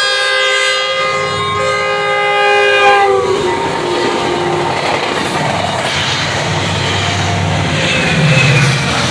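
Caltrain passenger train passing at full speed: its horn blows a loud chord that drops in pitch and stops about three seconds in as the locomotive goes by, then the cars rumble and clatter past on the rails.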